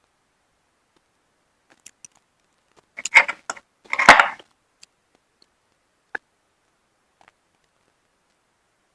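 Hard shells clicking and knocking against each other and the dish: a quick run of sharp clicks about three seconds in, a louder clatter a second later, then a few single clicks.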